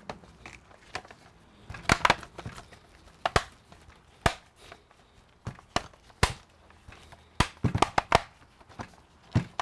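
Irregular sharp clicks and knocks of a laptop being handled on a workbench: gloved hands pressing on its bottom cover, then turning the laptop over and setting it down, with a cluster of quick knocks about three quarters of the way through.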